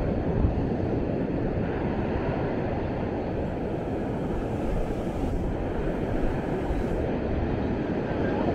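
Steady low rumble of beachfront ambience, an even wash of noise with no distinct events.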